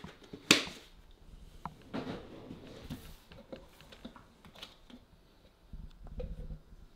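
Clicks, taps and rustles of supplement tubs, lids and a plastic shaker cup being handled on a kitchen counter while a protein shake is made, with one sharp click about half a second in and softer scattered taps after.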